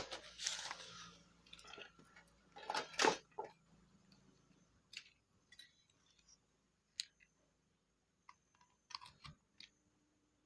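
Handling noise: two longer rustling scrapes in the first three seconds, then a few sharp scattered clicks and taps.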